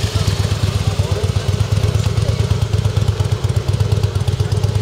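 Single-deck bus diesel engine running at low revs with a steady, pulsing low rumble as the bus moves slowly.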